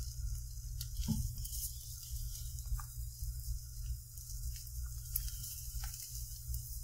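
Eggs for an omelet sizzling softly in a buttered skillet, with a few light scrapes and taps of a spatula worked around the edge of the pan, over a steady low hum.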